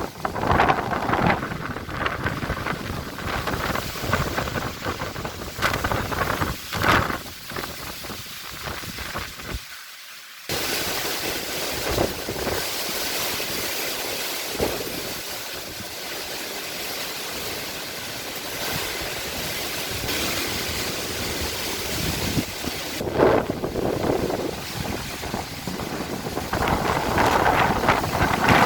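Storm wind gusting and buffeting the microphone. About ten seconds in, the sound changes abruptly to a steadier rushing hiss of wind-driven rain, and the gusts pick up again near the end.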